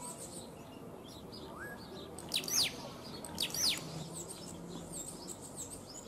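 Scrub blackbird calling: two loud, sharp calls sweeping down in pitch, about a second apart, with faint high chirps around them.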